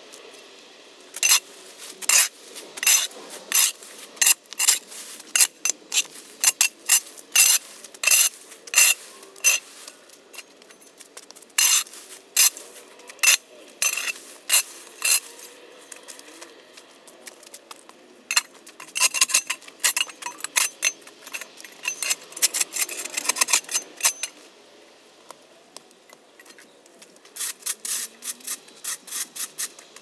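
Metal shovel blade scraping across a concrete court, clearing packed dirt and grass: many short, sharp scrapes, about two a second, in runs with a pause of a few seconds near the end.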